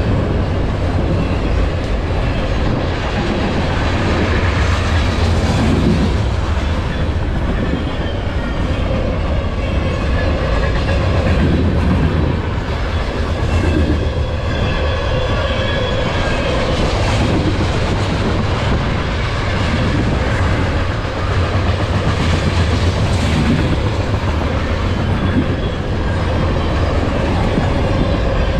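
Cars of a long CN freight train (autoracks, tank cars and covered hoppers) rolling steadily past, a continuous rumble and clatter of steel wheels on the rails.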